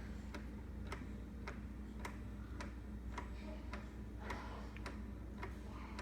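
Soft, regular clicking, a sharp tick about twice a second, keeping an even beat.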